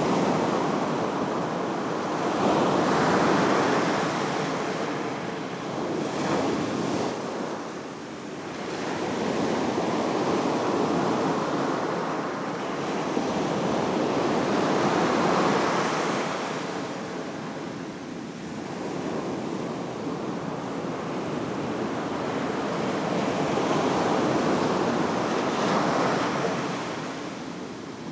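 Ocean surf breaking and washing up a sand beach, a steady rush that swells and fades every few seconds as each wave comes in.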